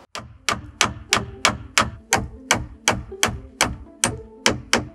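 Steady hammering, about three sharp blows a second, each leaving a short ringing tone, typical of driving a nail into wood.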